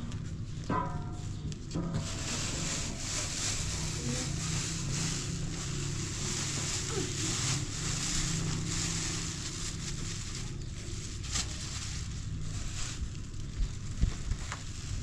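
Flour being shaken through a wooden-rimmed sieve and poured in from a plastic bag: a rustling hiss over a steady low hum, with a few light taps near the end.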